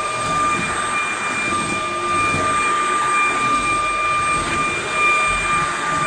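Tineco A10 Hero cordless stick vacuum running steadily on a tile floor: a constant high motor whine over the rush of suction airflow.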